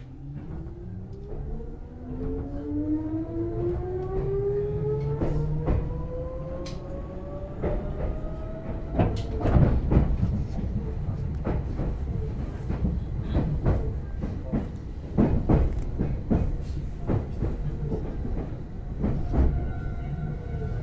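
Meitetsu 6000-series electric train pulling away from a standstill: the traction motor whine climbs steadily in pitch over the first nine seconds or so as it accelerates, over a low running rumble. From about eight seconds in, the wheels clatter and knock repeatedly over rail joints and points.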